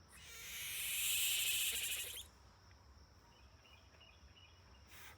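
A harsh, breathy screech from an unseen animal, swelling for about two seconds and then cutting off, followed by a few faint short chirps; one of a series of calls that seem to answer each other.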